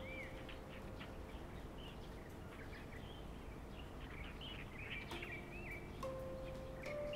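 Small birds chirping repeatedly over a steady outdoor hiss, the chirps thickest about five to six seconds in. Underneath, a few low sustained tones of soft background music start and stop.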